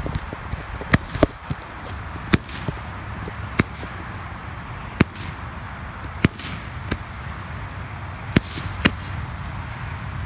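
Two Roman candles firing shot after shot: about ten sharp pops at uneven intervals, roughly one a second, as they send up comets.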